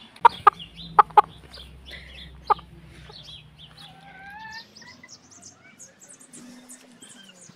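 Domestic hens clucking close to the microphone, with a few sharp knocks in the first three seconds and softer drawn-out calls that glide in pitch after about three and a half seconds.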